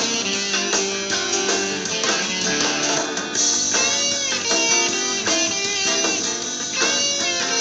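Electric guitar played through an amplifier: bluesy lead lines, with bent notes that rise and fall back about four seconds in and again near the end.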